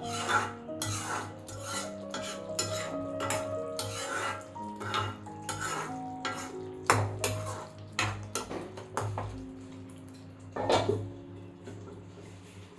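Metal utensils clinking and scraping against cookware in quick, irregular strokes, as in stirring, with background music playing.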